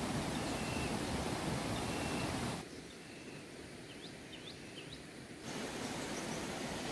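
Rural outdoor ambience: a steady rushing noise that drops away suddenly about two and a half seconds in and returns about five and a half seconds in. In the quieter stretch a small bird gives a few short rising chirps.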